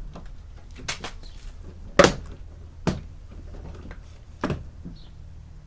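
Plastic door trim panel of a Toyota Corolla E150 being worked off the door, giving four sharp knocks and clicks, the loudest about two seconds in.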